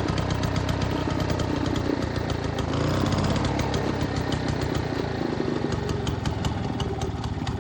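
1947 Frazer rototiller's gasoline engine running steadily with a rapid, even firing beat, driving the tines in low gear.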